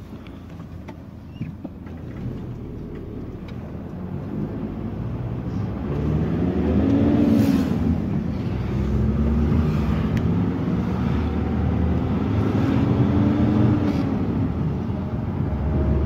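Motor vehicle engine running, growing louder over the first few seconds, then rising and falling in pitch several times as it speeds up and slows.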